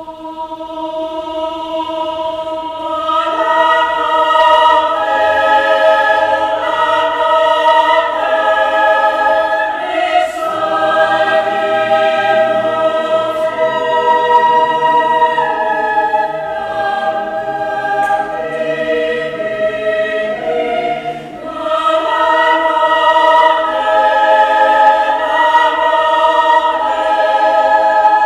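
Mixed choir of women's and men's voices singing a cappella in a stone church, holding sustained chords that shift in steps. The singing swells from soft to full over the first few seconds and dips briefly about three quarters of the way through before building again.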